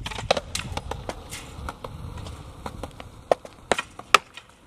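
Bolt cutters snipping the wire of a chain-link fence: a run of sharp metallic clicks and snaps, with three loud snaps near the end.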